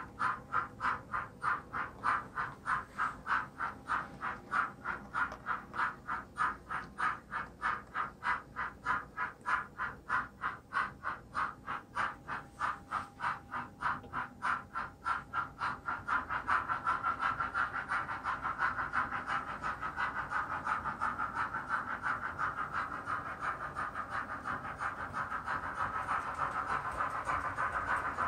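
Steam exhaust chuffs from the DCC sound decoder's small speaker in a model GNR Stirling Single locomotive, in a steady beat of about three a second. About halfway through, the beats quicken and run together into near-continuous chuffing.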